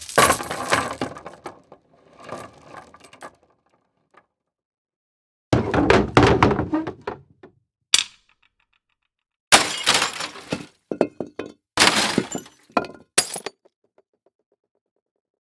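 A series of separate impact sound effects: crashes of something breaking, each followed by scattered clinking debris, with silent gaps between them. The longer effects come about a third and two-thirds of the way in, and there is a short single crack in between.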